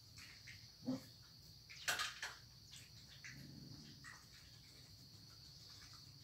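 Faint, steady, high-pitched insect drone, with two short, sharp clicks about one and two seconds in.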